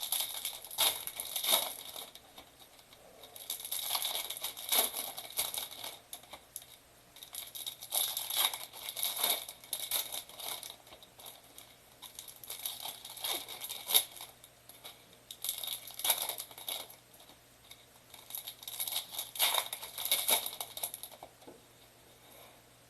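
Plastic wrapping on trading-card boxes and packs being torn open and crinkled by hand, in repeated bouts a second or two long with short pauses between, and one sharp snap about 14 seconds in.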